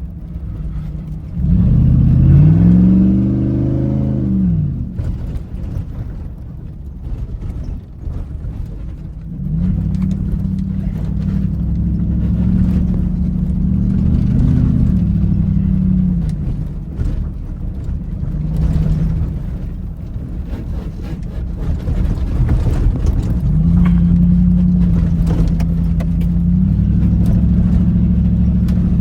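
Dodge Ram pickup's Hemi V8 engine pulling the truck over rough off-road ground, revving up and back down about two seconds in, then running at a steady pull with the throttle easing off and on. Faint knocks and rattles come over the top.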